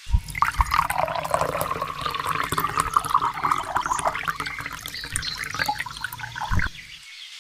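Water pouring out in a steady gushing stream, then stopping suddenly near the end.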